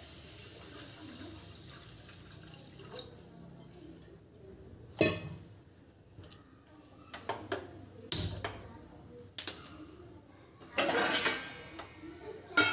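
Water poured from a steel vessel into a steel cooking pot, a splashing pour that fades out over the first couple of seconds. Then a few separate clinks and knocks of steel kitchenware, a brief rush of noise, and a sharp clink near the end as a steel lid goes onto the pot.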